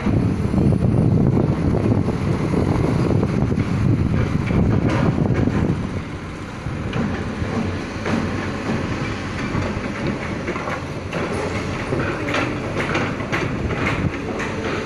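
Hitachi excavator at work: a steady low engine rumble with clanking and knocking, loudest for the first half, then easing to a quieter run with scattered metallic knocks.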